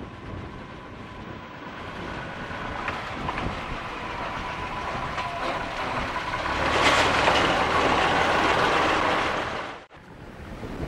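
Small narrow-gauge diesel locomotive running along the track, growing louder as it approaches and passes close. Its engine and its wheels on the rails are loudest from about seven seconds in, and the sound cuts off suddenly near the end.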